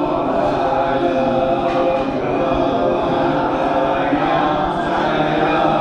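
A group of voices chanting mantras together in a steady, unbroken drone.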